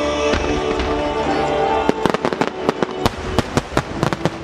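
Music with sustained notes. About halfway through, a rapid string of sharp firework bursts joins it, roughly four or five bangs a second.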